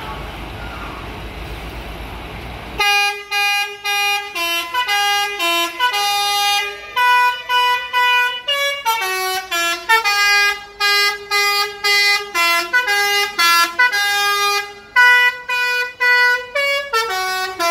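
Departing coach's engine running for about three seconds. Then a multi-tone musical air horn, an Indonesian 'telolet' bus horn, plays a quick melody of short notes one after another, rising and falling in pitch.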